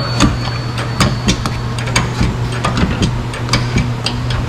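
Irregular clicks and light metal knocks from hand-tool work on a pickup's front suspension, several a second, over a steady low hum.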